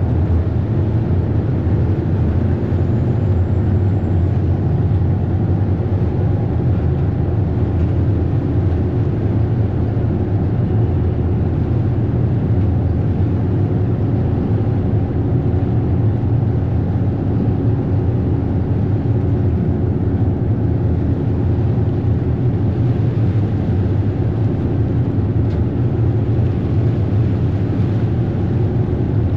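Ferry engine running steadily at cruising speed, a constant low drone, with water rushing in the wake behind the stern.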